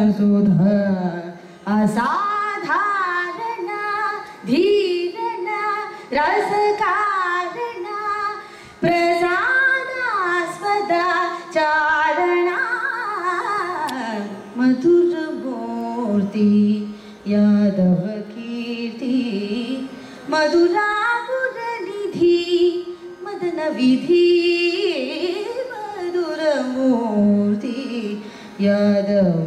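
A woman singing Carnatic music, holding notes and gliding between them with ornamented turns, phrase after phrase with short breaths between.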